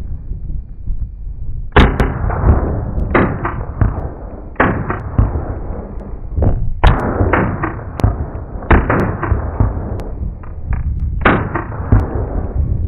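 Rifle fire from a line of prone shooters with M16-family rifles: many sharp, echoing shots, some overlapping, coming in clusters from about two seconds in.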